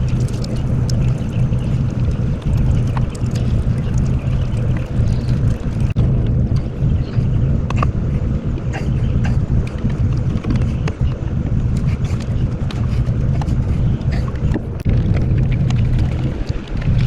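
A motor running steadily with a low, even drone, with scattered sharp clicks and taps over it.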